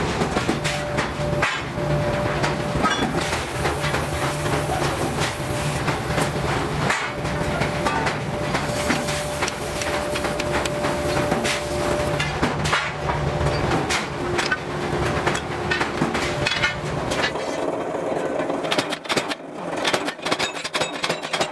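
Hammer repeatedly striking metal in forging, the blows coming fast and irregular over a steady machine hum; the hum stops about 17 seconds in, leaving only the hammer blows.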